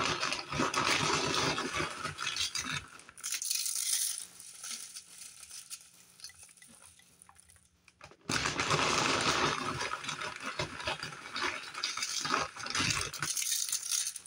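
Ripple-cut potato chips crushed by hand over a casserole: a dry, crackling crunch in two spells, with a quieter lull of a few seconds in the middle.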